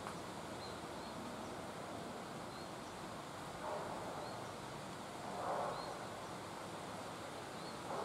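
Outdoor ambience: a steady hiss, with faint short high chirps every second or two and a few brief swells of louder noise, about four and five and a half seconds in and again near the end.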